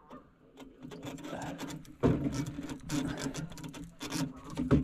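Fishing reel being worked against a hooked catfish: rapid mechanical clicking and whirring over a steady low hum, louder about two seconds in and again near the end.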